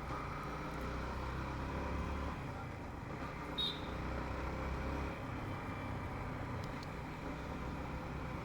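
Motorbike engine running steadily at low speed in street traffic, with a short high-pitched beep about three and a half seconds in.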